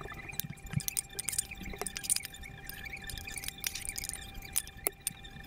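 Spatula and pan scraping and clicking as scrambled eggs are tipped onto a ceramic plate: scattered light clicks and scrapes over a faint steady high whine.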